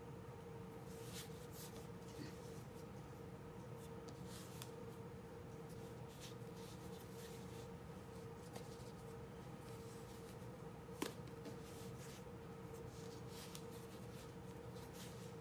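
Soft, intermittent brushing and rubbing of hands rolling and shaping bread dough on a floured granite countertop, over a steady faint hum, with one sharp tap about eleven seconds in.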